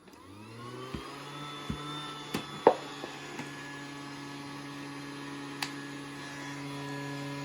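Toy Hetty vacuum cleaner's small electric motor switched on, rising in pitch to speed over the first second and then running with a steady hum. A few short knocks sound over it, the loudest about two and a half seconds in.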